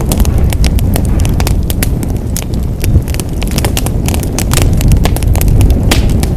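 Fire burning in a fireplace: dense, irregular crackles and sharp pops over a steady low rumble of the flames.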